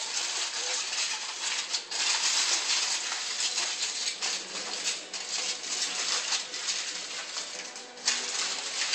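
Aluminium foil crinkling and rustling as it is folded and crimped by hand over fish on a metal baking sheet, a steady run of small crackles.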